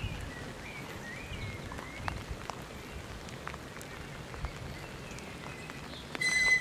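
A miniature railway locomotive's whistle gives one short, steady, high-pitched blast near the end. Before it there are faint scattered ticks and a few small bird chirps.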